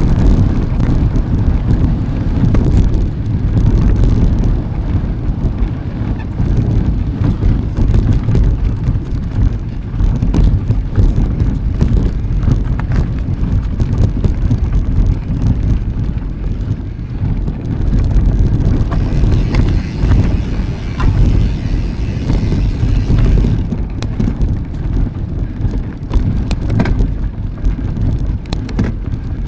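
Wind buffeting the microphone of a camera on a moving mountain bike: a loud, steady low rumble.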